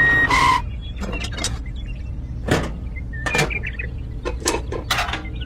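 A reversing beeper sounds once more, then a small electric motor hums steadily under a scatter of sharp plastic or metal clicks and knocks.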